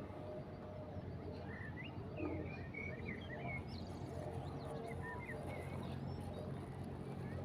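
Small songbirds chirping in short, quick phrases, in two bursts a few seconds apart, over a steady low rush of wind.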